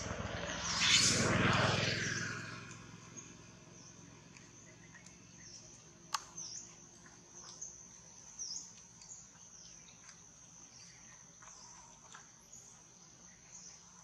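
Natural outdoor ambience: a steady high-pitched insect drone with short chirps recurring every half-second to a second. A loud rushing whoosh fills the first two seconds, and a single sharp click comes about six seconds in.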